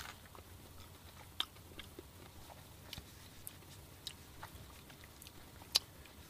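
A person biting into and chewing a mouthful of a grilled-chicken tortilla wrap, with faint scattered mouth clicks and a sharper click near the end.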